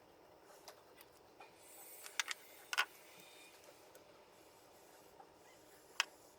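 Quiet handling noise: a few sharp clicks and taps, a quick cluster of them about two to three seconds in and a single one about six seconds in, over a faint hiss.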